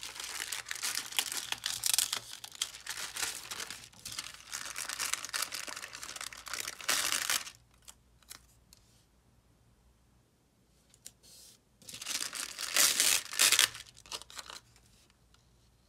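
Thin clear plastic sheet crinkling and rustling as hands lift and move it, in a long stretch of handling and then, after a few quiet seconds, a second shorter, louder bout.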